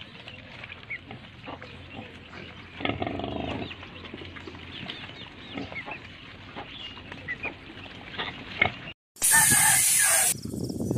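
Suckling piglets squeaking and grunting at a sow's teats, with a longer, louder grunt about three seconds in. Near the end the sound cuts out for a moment and a loud steady hiss takes over.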